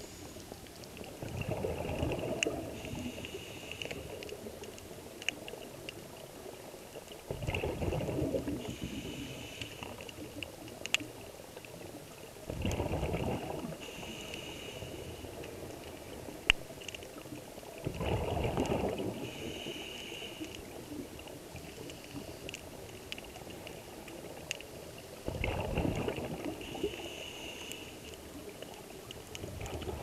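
Scuba breathing through a regulator underwater: a bubbling rush of exhaled air about every five to six seconds, each followed by a short hissing inhale through the regulator.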